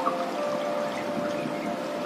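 Soft background music of long held notes over a steady hiss.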